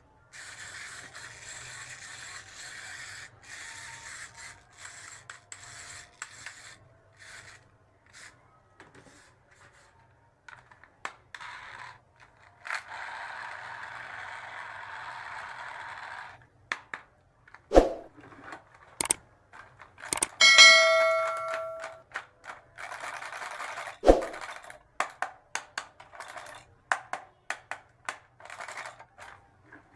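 Small plastic toy pieces being unpacked and handled: rustling and scraping, with a steady scrape partway through and many small clicks and taps. There are two sharp knocks, and a short ringing ding about two-thirds of the way in.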